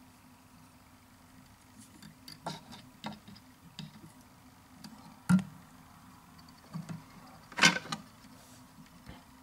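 Scattered small clicks and taps of fingers and tools handling a fly-tying vise, irregular. The loudest comes about five seconds in, and a slightly longer one near the end, over a faint steady hum.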